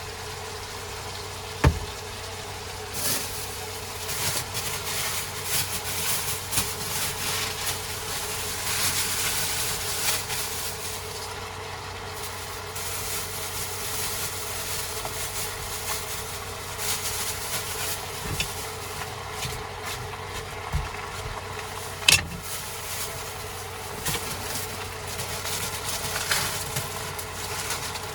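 A steady motor hum with irregular rustling and handling noises, and two sharp knocks: one about two seconds in, one about three-quarters of the way through.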